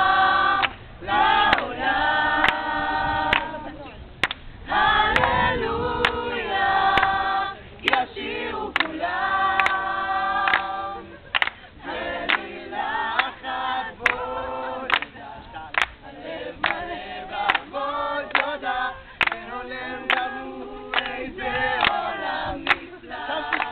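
A group of voices singing a cappella, choir-style, with several sung notes held and changing together. Short sharp clicks or claps are scattered through the singing.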